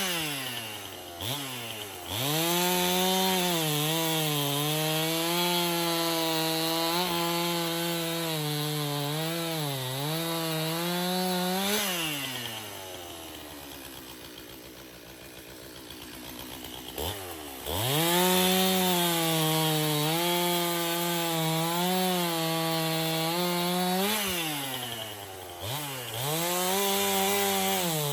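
Stihl chainsaw bucking a log for firewood, its engine running at high revs and bogging and recovering under load. About twelve seconds in it drops to idle for a few seconds, then revs back up and cuts again.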